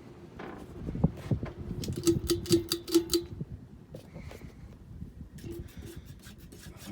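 Tatung Emperor ceiling fan running with a steady motor hum and a fast, rhythmic clicking and knocking for about three seconds, then quieter with a few fainter clicks near the end.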